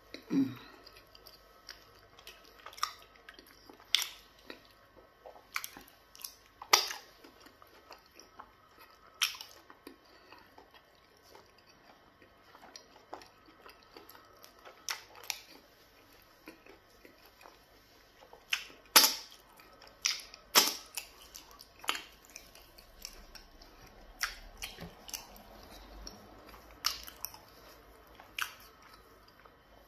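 A person chewing meat and soup eaten by hand, with scattered short, wet mouth smacks and clicks; the two loudest smacks come a little past halfway.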